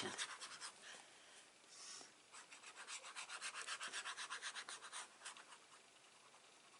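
Paper being rubbed with quick back-and-forth strokes, about six a second, for some three seconds in the middle, as a glued paper layer is pressed or burnished down. A brief rustle of paper comes just before.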